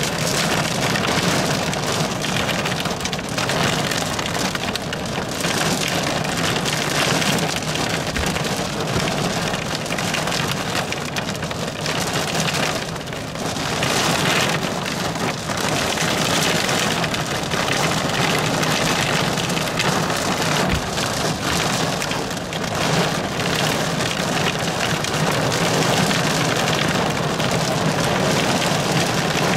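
Heavy thunderstorm rain drumming steadily on a car's roof and windows, heard from inside the car. A low steady hum runs underneath.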